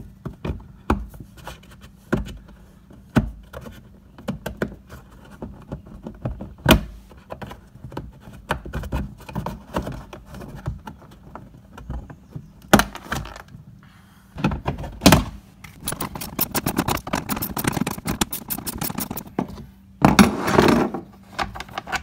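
Scattered clicks, knocks and rattles of hand tools, screws and plastic trim being worked loose by hand inside a jet ski's plastic hull, with a fast run of clicks a little past the middle and a short scraping rustle near the end.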